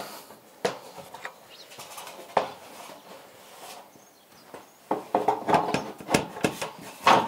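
Scattered light metallic knocks and clinks from handling a bullnose corrugated iron roofing sheet on a scaffold as it is settled into place. A few single knocks come in the first few seconds, then a busier run of clatter starts about five seconds in.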